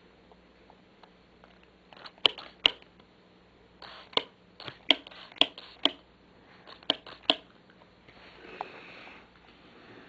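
Irregular sharp clicks and taps from hands working over the playfield with cleaning gear, about eight of them, followed near the end by a soft rustling hiss.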